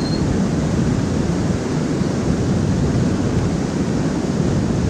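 Steady rushing of water pouring over a low dam, an even, unbroken wash of noise heavy in the low end.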